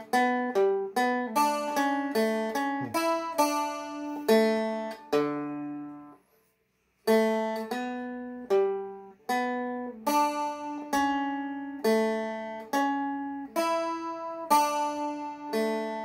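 Seagull Merlin M4, a small four-string fretted instrument, picked with a flatpick: a reel melody played slowly note by note, about two notes a second, with a pause of about a second partway through.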